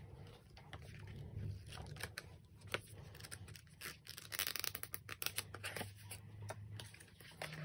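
Paper rustling and small clicks as a K-pop album's photobook and photocards are handled, with a brief fast riffle of the photobook's pages in the middle.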